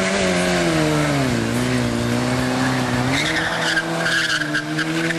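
Yamaha sportbike's inline-four engine held at high revs in a burnout. It sags briefly and climbs again about three seconds in, where the spinning rear tire starts to squeal.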